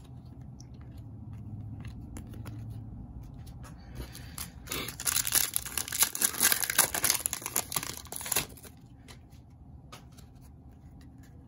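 A basketball trading-card pack wrapper being torn open and crinkled, a dense crackling that starts about five seconds in and lasts about four seconds, with quieter handling before and after.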